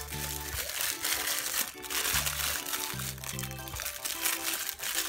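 Background music of short repeated notes, over the crinkling of a small clear plastic bag of toy pieces being handled and pulled open.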